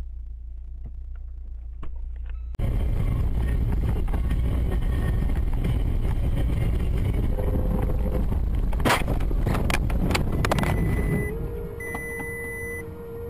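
Vehicle engine and road noise. About two and a half seconds in it cuts sharply to much louder rumbling road noise, with a few sharp knocks or bangs around nine to eleven seconds. Near the end a steady tone sounds, with short high beeps repeating over it.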